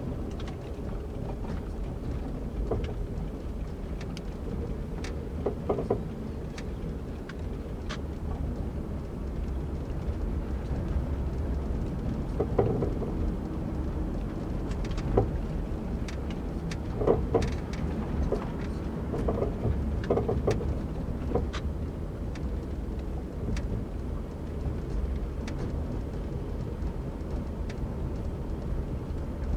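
Low road and tyre rumble heard from inside a 2004 Toyota Camry Solara's trunk while driving, with irregular clunks and knocks from the rear suspension, several coming in quick clusters. The clunking comes from a leaking rear right strut, which the owner found to be the cause.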